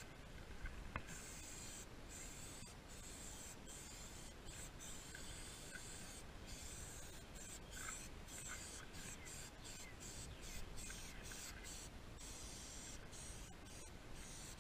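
Aerosol spray can of plastic restorer hissing, sprayed in a run of bursts with short sudden breaks from about a second in, the breaks coming more often near the end.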